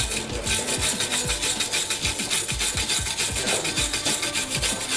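Hand wire brush scrubbing rust and corrosion off the steel wheel-hub face of a BMW E46, cleaning it before a new brake rotor goes on. Quick, even back-and-forth strokes, several a second.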